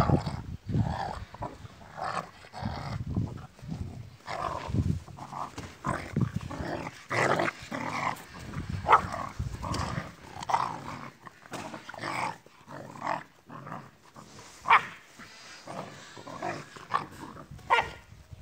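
A Labrador and a brown puppy play-fighting, with a run of short growls and barks in irregular bursts.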